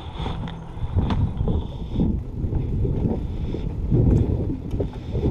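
Low rumbling wind noise on the microphone, with irregular thuds and rustles of a player moving on foot.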